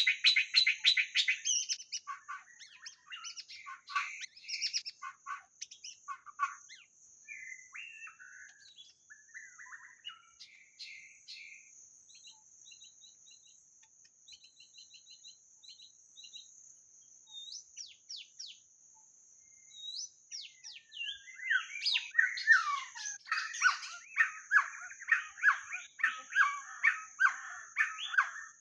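White-rumped shama singing a long, varied song of whistles, trills and quick chattering phrases. It is busiest at the start and again over the last several seconds, with a quieter middle stretch of thin repeated notes. A steady high-pitched tone runs underneath throughout.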